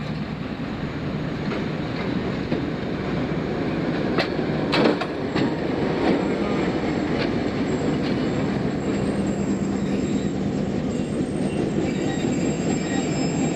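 Pakistan Railways HBU-20 diesel-electric locomotive passing slowly close by, its engine running steadily, with a few sharp clicks of the wheels over the rails about four to five seconds in. A faint high wheel squeal comes in over the last few seconds.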